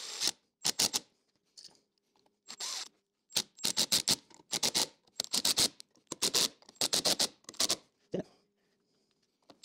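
Cordless impact driver driving a long wood screw through a metal engine mount into a wooden block, running in a series of short bursts with brief pauses between them.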